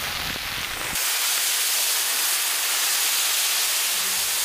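Loud, steady hissing sizzle as Hakka niangjiu rice wine is ladled into a hot wok of chicken pieces browned in tea oil, setting in about a second in.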